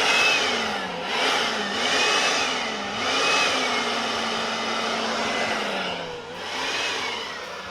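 Suzuki JR50's small two-stroke single-cylinder engine running on a replacement carburettor, revved up and down in quick throttle blips about once a second, then held at a steady higher speed, dropping and blipping once more near the end.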